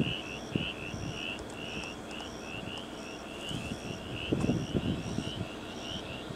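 Night insects chirping in two overlapping rhythms, one about three chirps a second and a higher, slower one, over a low, steady rumble that swells a little about four seconds in.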